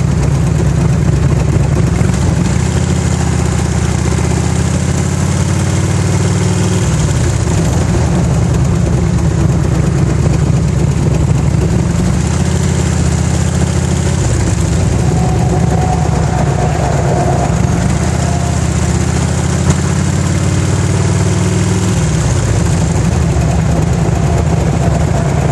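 1991 Harley-Davidson Electra Glide's 1340 Evolution V-twin running, mostly at idle, its pitch shifting a few times. It carries the ticking noise that the owner hears once the engine is hot and is unsure whether it is pinging, knocking or valve noise.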